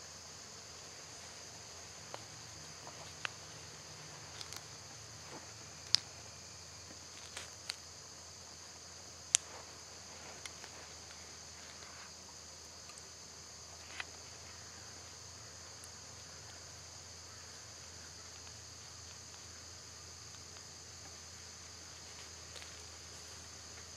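Steady, high-pitched chorus of insects chirping in the field, with scattered sharp clicks, the two loudest about six and nine seconds in.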